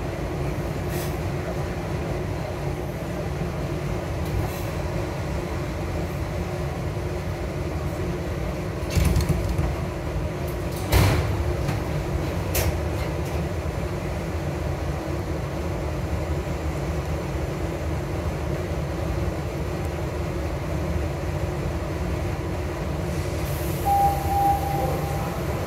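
SEPTA Broad Street Line subway car, a Kawasaki B-IV, standing at a station with its equipment humming steadily. Loud knocks come about nine and eleven seconds in, and near the end there is a hiss of air with a short steady tone.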